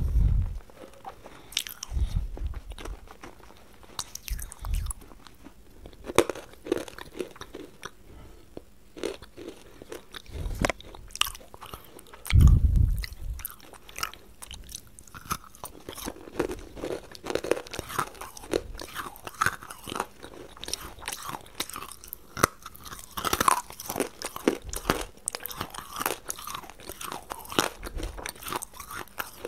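Close-up eating: sharp bites and crunching of hard, brittle pieces, with chewing between bites. There are a few dull low bumps in the first half, and the crunching grows denser in the second half.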